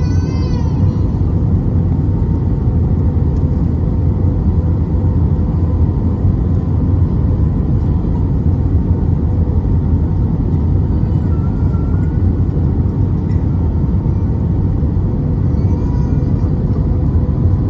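Steady low rumble of cabin noise inside an Airbus A320-214 with CFM56 engines, heard from a window seat, with a faint steady hum over it.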